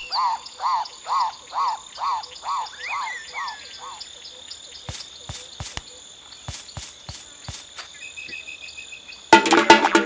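Cartoon forest ambience: about a dozen short calls, each rising and falling in pitch, over a steady high whine. Scattered clicks follow, and percussive music starts near the end.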